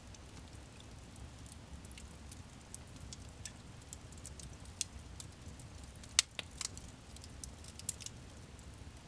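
Wood fire crackling in a fireplace: scattered small ticks and pops, with one sharp loud pop about six seconds in and a few smaller ones just after, over a low steady rumble.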